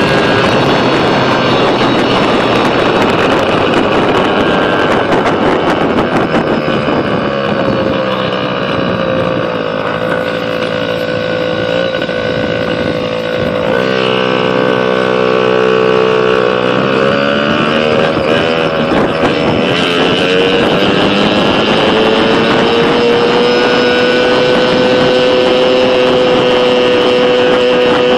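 Pit bike's small single-cylinder engine running under way, its pitch rising and falling with the throttle, with wind on the microphone. About halfway through it drops to a lower, steadier pitch, then climbs again and holds a steady higher pitch near the end.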